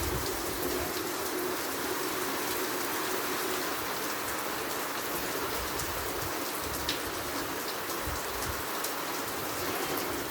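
Steady rain falling, an even hiss of rain on surfaces with occasional sharper drop ticks.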